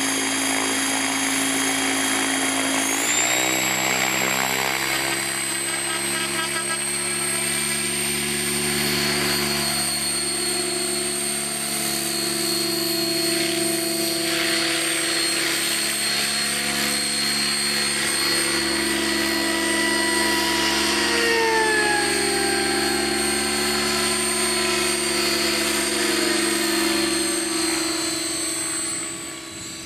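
Kasama Srimok 90 electric RC helicopter, 12-cell brushless, running: a steady rotor hum with a high motor whine. The pitch shifts about three seconds in as it lifts off. The whine falls in pitch about two-thirds of the way through and gets quieter just before the end.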